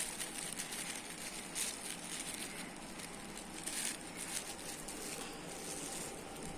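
A thin plastic bag crinkling as powder is shaken out of it into a glass jar, with two brief louder rustles.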